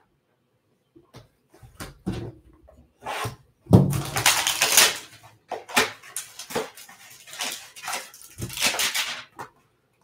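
Hands handling a cardboard trading-card hanger box and a stack of cards: a run of rustles, scrapes and light taps, the loudest and longest stretch about four seconds in.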